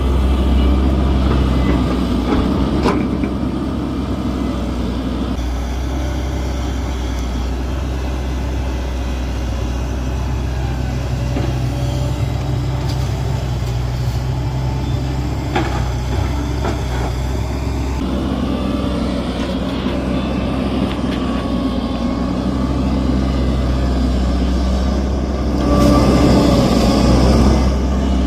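Hitachi excavator's diesel engine running steadily while it works, its note shifting with the load, and growing louder and rougher for a second or two near the end.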